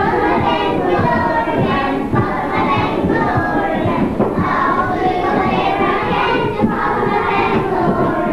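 A class of young children singing together.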